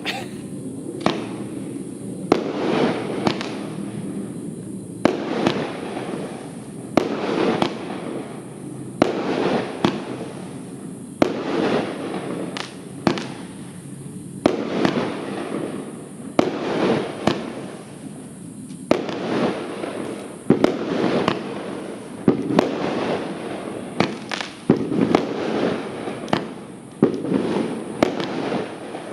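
Funke Argento 'Blütenstaub' 25-shot, 30 mm firework battery firing: sharp reports about once a second, each trailed by a spreading crackle of crackling stars.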